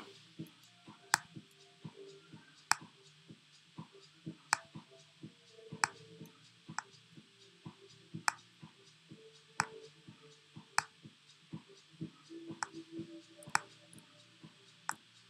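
Scattered sharp clicks from a computer's mouse and keys being worked, one or two a second at irregular spacing, over faint background music.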